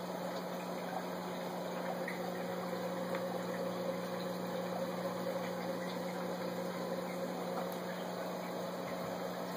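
Aquarium pump running steadily: a constant low hum under an even hiss, with a few faint ticks.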